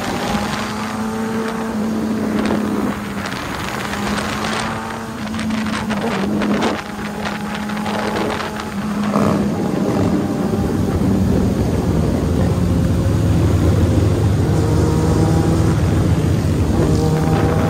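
Motorcycle engines on a freeway group ride: a bike engine running steadily close by, its revs rising and falling, amid the sound of other bikes in the pack. Wind buffets the microphone at speed.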